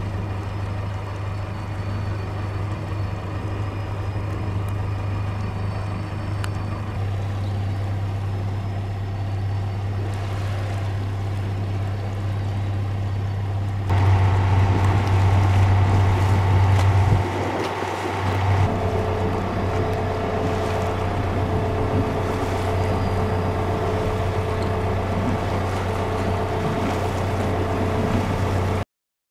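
A motorboat engine running steadily with a low hum over water noise. About halfway through it becomes louder for a few seconds, and higher steady engine tones come in. The sound cuts off suddenly just before the end.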